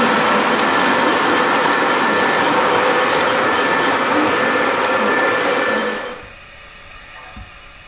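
Lighted model train cars rolling past close by on three-rail track: a loud, steady whirring clatter of wheels on rail with a faint whine. About six seconds in it drops away sharply, leaving a quieter steady hum.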